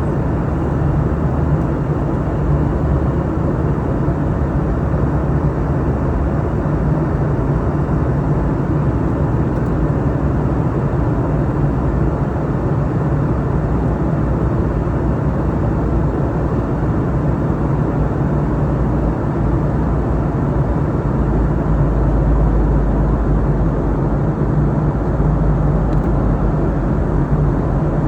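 Steady cabin noise inside a Boeing 717-200 in flight on descent: the even rush of engine and airflow noise, with the low rumble swelling slightly about two-thirds of the way through.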